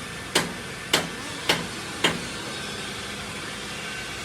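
Steady hammering, four sharp blows about half a second apart that stop about two seconds in, over a steady hiss.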